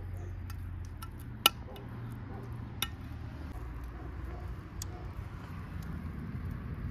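Metal cutlery clinking against a glass baking dish: a few sharp clinks, the loudest about one and a half seconds in, with a steady low rumble underneath.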